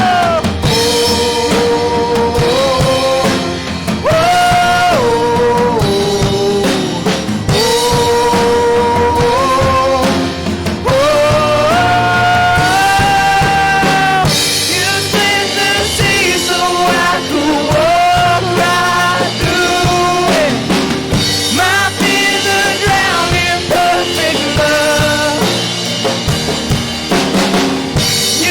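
A worship band playing, with drum kit and band under a singing voice that holds long notes and slides between them.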